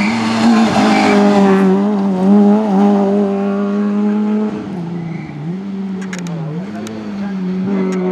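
Rally car engines running at high revs on a tarmac stage, the pitch holding steady and then dipping and climbing again several times as the drivers lift off and get back on the throttle, with a few sharp cracks in the second half.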